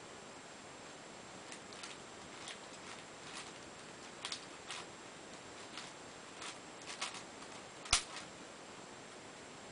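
Plastic layers of a Cube4You 3x3x7 cuboid twisty puzzle clicking as they are turned by hand: irregular clicks, with one louder click about eight seconds in.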